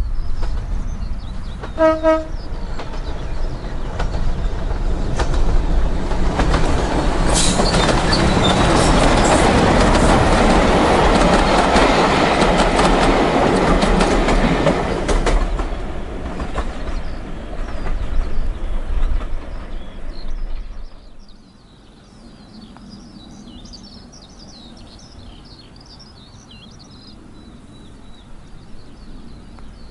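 Diesel locomotive sounding one short horn blast, then its engine and the train running past, with the clickety-clack of coach wheels over the rail joints, loudest as the coaches go by and then fading away. For the last third, birds chirp over quiet countryside.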